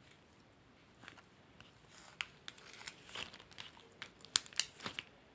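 Glitter slime being squished and worked, giving small crackling pops and clicks. The pops start sparse and grow denser and louder about two seconds in.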